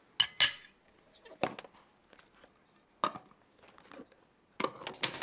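Metal spoon, bowls and stainless-steel food containers clinking and knocking as food is packed and lids are handled: a string of separate sharp clinks, the loudest about half a second in, with a quick cluster near the end.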